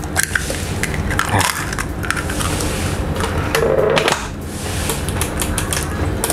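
Clicks and knocks of a stand mixer's stainless-steel bowl and tilt head being handled: an egg goes into the batter and the whisk head is lowered and locked, with the motor not yet running.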